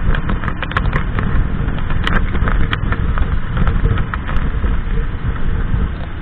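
Harley-Davidson Sportster's air-cooled V-twin engine running at highway cruising speed, with wind rushing and buffeting the handlebar-mounted camera's microphone in rapid crackles.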